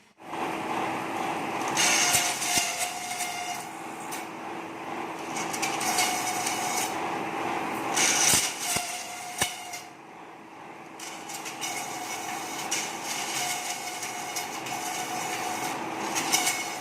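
Electric satay-skewer slicer and double planer running with a steady motor hum, with several stretches of harsh cutting noise as stock is fed through its blades.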